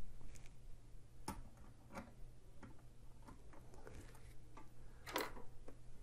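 Faint, scattered clicks and taps of a tower CPU heatsink's metal being set down onto a motherboard and lined up for screwing down, about one every half second to second, the loudest a little after five seconds in.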